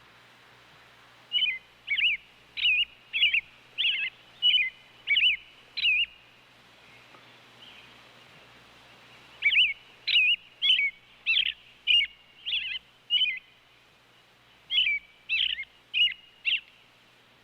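A robin singing: three phrases of short, warbled notes, each of about six or seven notes in quick succession, separated by pauses of a few seconds.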